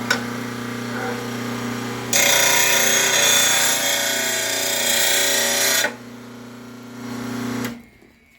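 RBG712 blade sharpener's motor running with a steady hum, with a lawn mower blade ground against the wheel for about four seconds in the middle. The grinding takes metal off the blade's heavy right side to bring it into balance. The motor hum stops near the end.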